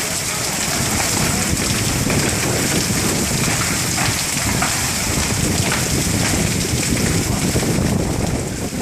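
Heavy hail and rain falling steadily, a dense hiss shot through with many small impacts.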